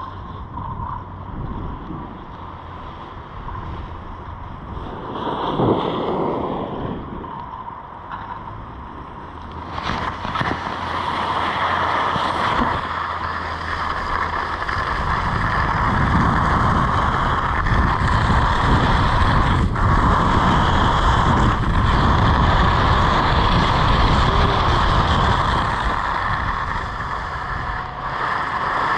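Skis hissing and scraping over groomed snow during a downhill run, with wind rushing over the microphone. The rush grows louder and steadier about a third of the way in.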